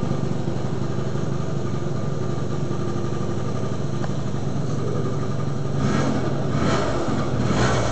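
Yamaha Vino scooter engine, fresh from a Taiwan big bore kit install and a Yms V8 exhaust, idling steadily; from about six seconds in the throttle is blipped in a few short revs. The owner finds it a little loud but running well.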